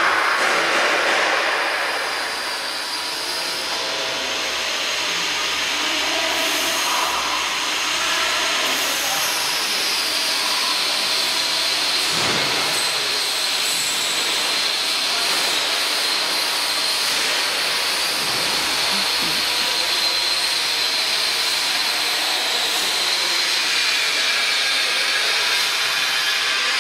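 Steady running noise of a potato chip processing line's machinery: a continuous hiss with faint steady high tones from its motors, without pauses or knocks.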